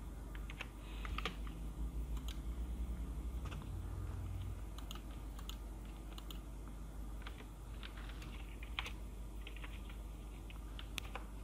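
Computer keyboard typing: scattered, irregular key clicks over a low steady hum.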